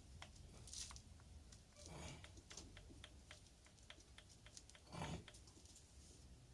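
Faint scattered clicks and light taps of small metal parts and hand tools being handled during scooter disassembly. Two soft brushing sounds come about two and five seconds in.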